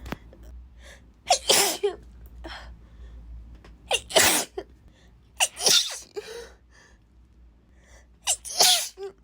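A woman sneezing four times in a fit, a loud sudden sneeze every one and a half to three seconds.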